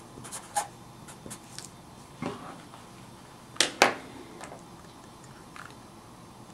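A felt-tip marker scratching short strokes on paper, then a knock and two sharp plastic clicks as a Hewlett-Packard 10B calculator is picked up and handled, followed by a few faint ticks.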